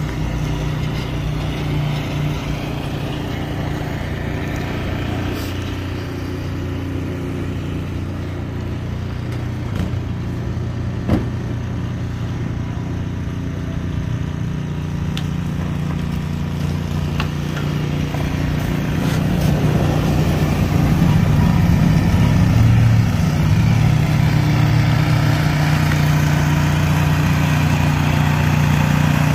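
A truck engine running steadily, getting louder about two-thirds of the way through, with one sharp knock around the middle.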